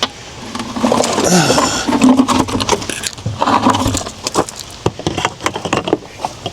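A removed wheel and tire being shifted by hand on a driveway or garage floor, with scraping and scattered knocks and clicks of handling and tools.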